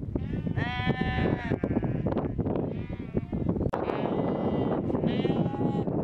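A flock of sheep bleating, with several long calls one after another and sometimes overlapping. The loudest call comes about a second in. A steady low rustling runs underneath.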